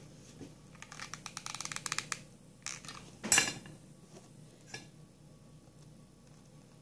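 Hands handling and pressing stiff starched-satin flower petals: a quick run of small crinkling clicks about a second in, a louder crackle a little past three seconds, then a faint tick.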